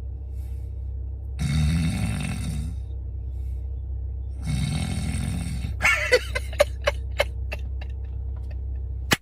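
A woman snoring: two long, noisy snoring breaths about three seconds apart. In the second half come a few short sharp clicks and brief pitched sounds.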